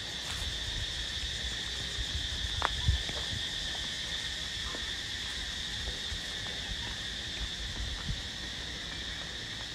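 Insects droning steadily at a high, even pitch, with a few faint ticks and a low rumble underneath.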